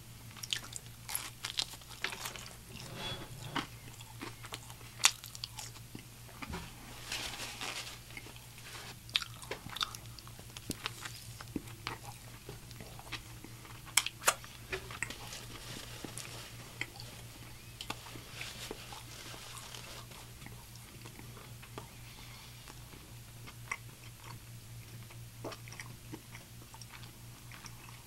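A man chewing and biting food close to the microphone: wet mouth sounds with many sharp crunches and clicks, densest in the first half and thinning out later. A low steady hum runs underneath.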